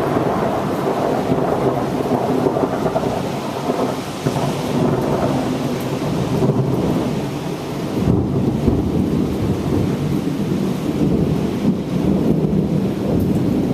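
Thunder rolling on and on over heavy rain, easing a little about four seconds in and swelling again about eight seconds in.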